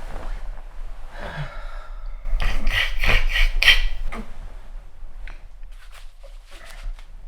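A person's loud, noisy breathing, strongest in a run of several breaths from about two seconds in to about four seconds in, over a low steady hum.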